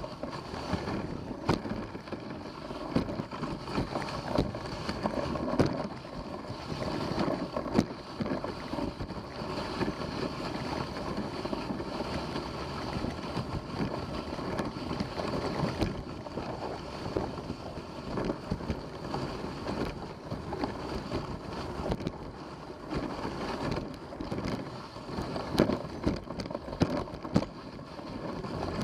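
A dog sled moving along a trail: a steady rushing hiss of travel, with wind on the microphone and scattered sharp clicks and knocks throughout.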